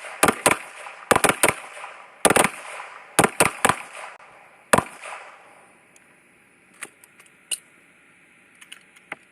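Several semi-automatic pistols firing together on a firing line: about a dozen loud shots in uneven, overlapping strings over the first five seconds, each with a short echo. A few faint clicks and knocks follow as the firing stops.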